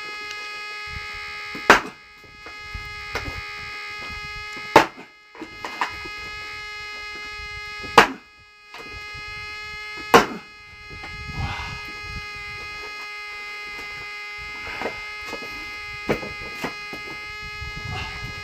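Axe blows into a knotty oak log that will not split: four heavy strikes a few seconds apart, then lighter knocks. A steady buzzing hum runs underneath.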